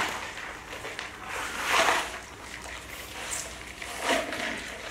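A red plastic bowl scraping and rustling on a floor mat as a baby monkey grabs and tilts it. There are two short scrapes, one about two seconds in and one near the end.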